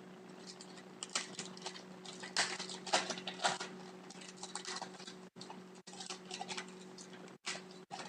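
Hockey trading cards being handled and flipped through in the hands: an irregular run of soft clicks and rustles, busiest from about one to four seconds in, over a steady low hum.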